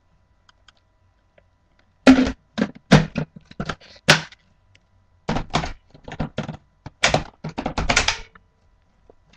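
Hard plastic clicks and knocks of a Dirt Devil Dynamite upright vacuum cleaner being handled, in two bursts of quick strokes starting about two seconds in.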